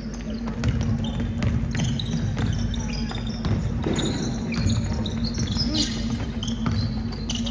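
Basketball game sounds in a gym: a ball dribbling on the hardwood court, short high squeaks of sneakers, and players' and spectators' voices, over a steady low hum.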